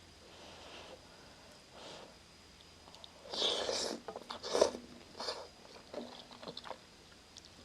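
Close-miked eating of instant noodle soup with shrimp: quiet for about three seconds, then a loud wet burst of mouth noise and a run of chewing and lip-smacking clicks.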